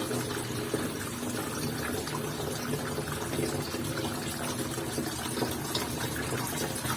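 Water running steadily into the wash tub of a Toshiba semi-automatic washing machine as it fills.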